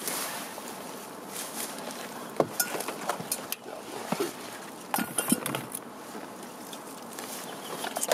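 A few light clinks and knocks, clustered in the middle, over a steady hiss.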